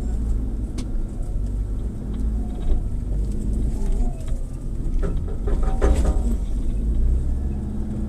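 An off-road 4x4's engine running steadily with a low rumble, with scattered knocks and rattles and a brief higher squeaky sound a little past the middle.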